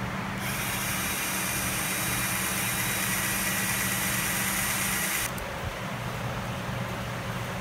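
Cordless drill running at speed, boring a small hole into pallet wood: a steady whining whirr that starts about half a second in and stops abruptly about five seconds later.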